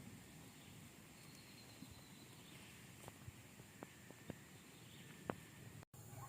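Near silence: faint outdoor ambience with a few soft, sharp clicks in the second half.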